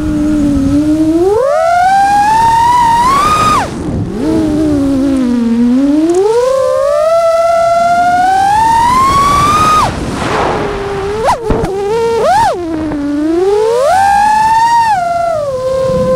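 Brushless motors and propellers of a Nazgul Evoque F6 six-inch FPV quadcopter, a whine that rises and falls with the throttle. The pitch climbs steadily twice and cuts off sharply each time, near four seconds and again near ten. Two quick blips follow, then another rise and fall near the end.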